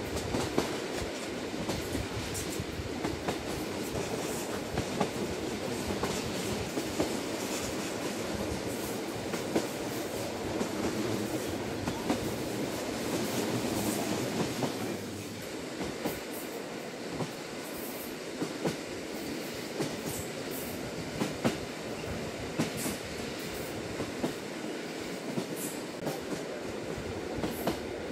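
Lilac limited express electric train running along the line, heard from inside the passenger carriage: a steady rumble with frequent sharp clicks from the wheels on the track. It becomes a little quieter about halfway through.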